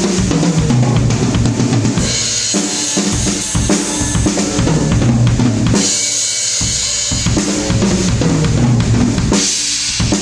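A PDP drum kit playing a groove, with bass drum, snare and cymbals, over a steady bass line; the low end briefly drops out about six seconds in.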